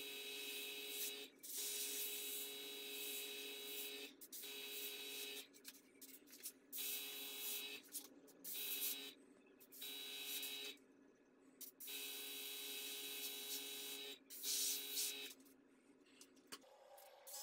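Airbrush spraying paint in repeated short bursts of hissing air, each one to two seconds long, over the steady hum of its air compressor.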